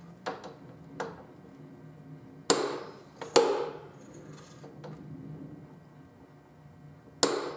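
Click-stop torque wrench pulled against its jig, breaking over at its set torque of 85 ft-lb with sharp metallic clicks. Two faint clicks come first, then two loud clicks with a short ring about two and a half and three and a half seconds in, and another loud click near the end.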